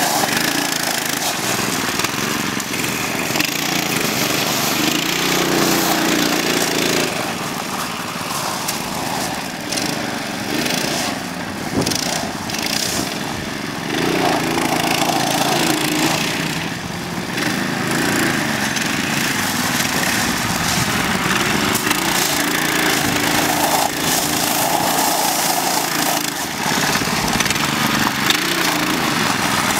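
Mini bike engines running and revving up and down as the bikes ride around, with the tyres crunching over loose gravel.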